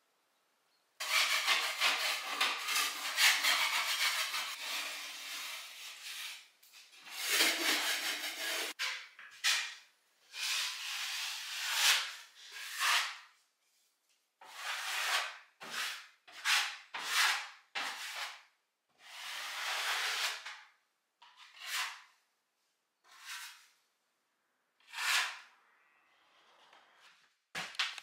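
Metal taping knife scraping joint compound across plasterboard joints: first a few seconds of steady scraping, then a run of separate strokes, roughly one a second.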